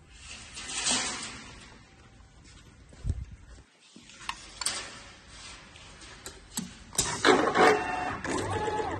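Automatic pre-tied ceiling wire machine working: a motor whine that steps in pitch, with clicks and rattles, starting about seven seconds in. Before that, scattered clicks and handling noises.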